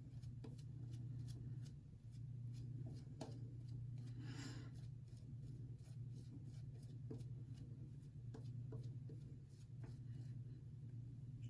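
Shaving brush working lather onto a face, faint scratchy brushing with scattered small clicks and one longer swish about four seconds in, over a steady low hum.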